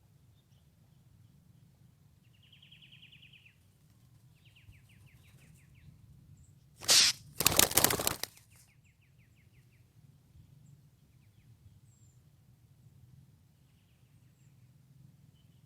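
A bird calling in short runs of rapid, trilled notes, several times over. A loud rushing, rustling burst comes about seven seconds in and lasts just over a second.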